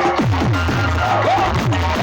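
Loud electronic DJ music played on a large sound-box rig. Rapid bass hits, about four a second, each falling in pitch, run over a steady deep bass hum.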